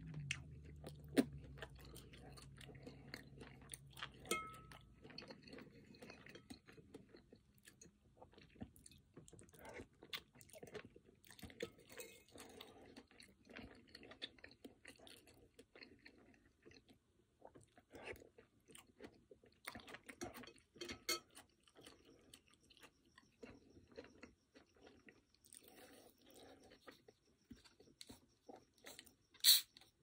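Close-miked chewing of chicken pozole with hominy and crunchy garnish, in many small crackles and bites. A metal spoon clinks against the ceramic bowl now and then, with one sharp, louder clink near the end.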